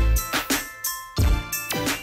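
Outro music with a beat and heavy bass hits, with a falling pitch sweep near the end.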